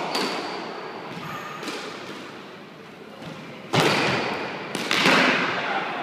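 A squash ball struck by rackets and smacking off the court walls. Each sharp crack has a long echo, and the two loudest come about four seconds in and again a second later.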